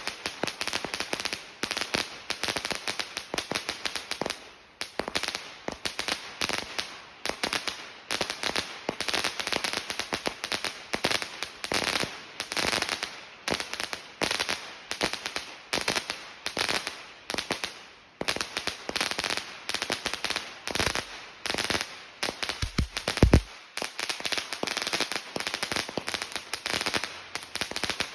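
Chinese firecrackers going off in a long, rapid string of cracks, many a second, in surges every couple of seconds. About 23 seconds in, one much louder, deeper bang stands out.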